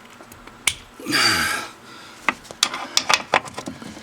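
Pneumatic impact wrench with a swivel socket running in one short burst of about half a second about a second in, with air hiss and a falling whine, backing out a parking-brake mounting bolt. A run of sharp metal clicks and clinks follows.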